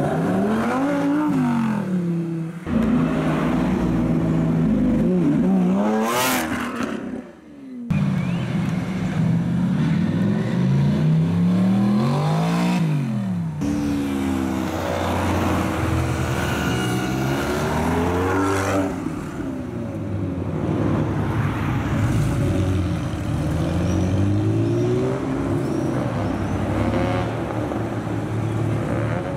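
Several sports car engines revving and accelerating away one after another, the engine pitch climbing and dropping again and again. The sound breaks off abruptly a few times as one car gives way to the next.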